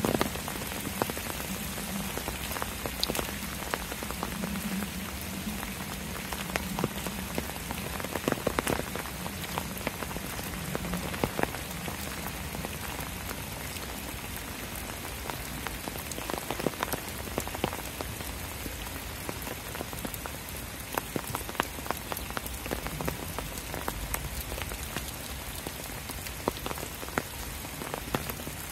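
Steady rain: an even hiss with many single drops striking sharply on top.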